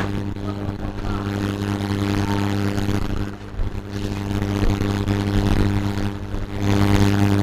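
Steady electrical hum with a stack of evenly spaced overtones, dipping briefly about three seconds in.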